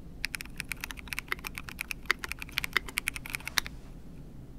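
Fast typing on a MONSTAR AQUA 67, a 67-key wired/wireless mechanical keyboard with a clear housing: a quick run of key clacks that stops a little after three and a half seconds in.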